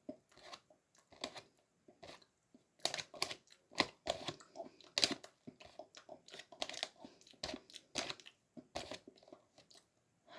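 Takis rolled tortilla chips being bitten and crunched, with the crinkle of the plastic snack bag as a hand reaches in, in many short, irregular crunches that come thicker from about three seconds in.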